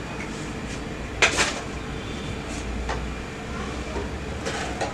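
An egg cracked against the rim of a bowl: one sharp knock about a second in, followed by a few light taps and clicks.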